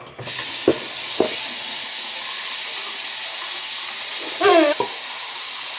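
Bathroom sink faucet turned on and running steadily into the basin, with two sharp knocks soon after it starts. A short wavering squeak or cry rises over the running water about four and a half seconds in.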